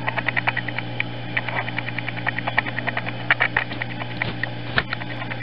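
Steady low hum under short runs of rapid, regular high chirping, about seven pulses a second. A few soft irregular clicks and rustles come from coils of flat oval reed being lifted and shifted on a tarp.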